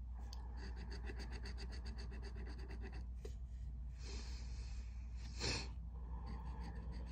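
Scratch-off lottery ticket being scratched with a pen-shaped scratcher: quick, even rasping strokes, about nine a second, pausing about three seconds in and starting again near the end. A short loud breath comes about five and a half seconds in.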